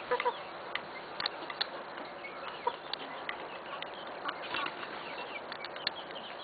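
Aseel chickens clucking in short scattered calls, the loudest right at the start, with a few brief sharp clicks in between.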